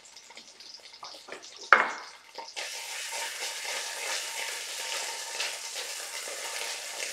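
Diced onions and ginger paste sizzling in oil in an enamelled pot while being stirred with a spatula. A sharp knock sounds about two seconds in, and the sizzling grows suddenly louder about two and a half seconds in, then holds steady.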